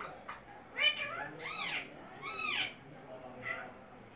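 Pet parrot calling: a short call about a second in, then two drawn-out calls that rise and fall in pitch, each about half a second long.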